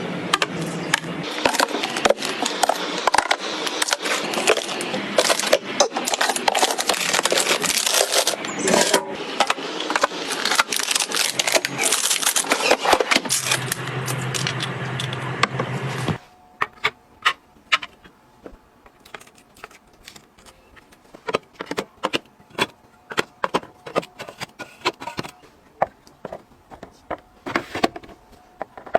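Food packages and containers being handled and set in place while a refrigerator is restocked. For about sixteen seconds there is dense clattering and rustling; then it drops off suddenly to quieter, scattered clicks and taps.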